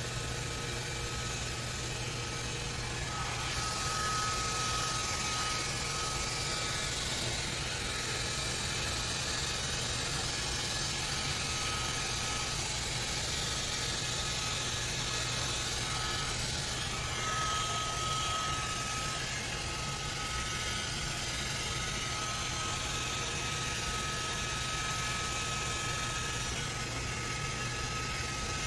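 Hand-held hair dryer blowing steadily as it dries a wet dog's coat: a rush of air with a thin steady whine over it. The rush grows a little louder a few seconds in and again a little past halfway through.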